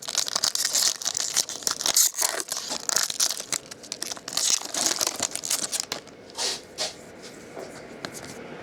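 Baseball card pack wrapper being torn open and crinkled, in quick irregular bursts that ease off about six seconds in, with two last short rustles after that.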